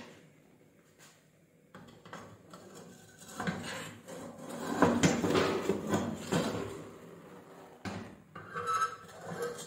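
A hot clay matka (earthen pot) being gripped with metal tongs and turned onto its side on a gas stove's metal grate. Clay and metal scrape and knock against each other, loudest around the middle.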